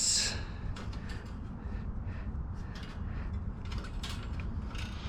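Scattered small clicks and scrapes of wire being twisted by hand to fasten a wire bike basket in place.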